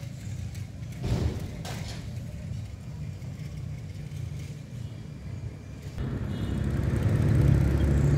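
Road traffic rumbling steadily, stepping up suddenly about six seconds in, with a louder passing vehicle near the end.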